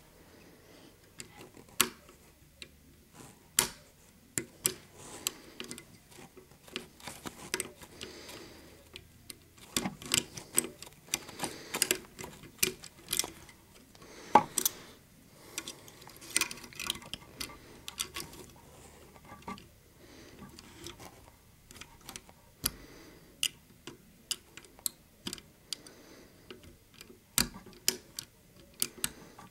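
Irregular small clicks and ticks of a lock pick and tension tool working the levers of an Ilco 7-lever safe-door lever lock, denser in the middle stretch.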